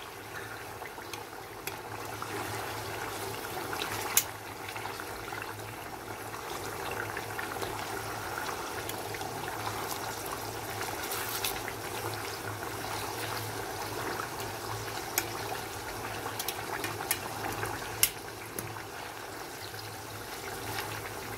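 Chicken pieces deep-frying in hot oil with a steady bubbling sizzle. A few sharp metallic clicks of tongs and a spoon against the pot sound as the pieces are turned over.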